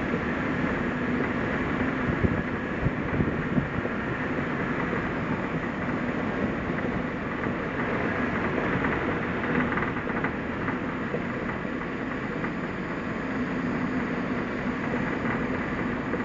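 Suzuki Jimny driving: steady engine and tyre noise on the road surface, with a few light knocks about two to four seconds in.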